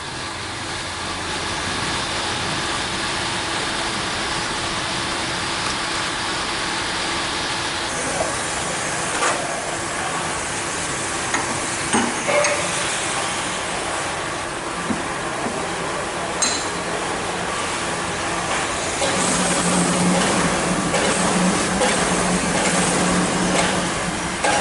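Steady workshop hiss with a few short metallic clicks and knocks as steel arbor parts and a heavy brake drum are handled on a brake lathe's arbor. A steady low hum comes in about three-quarters of the way through.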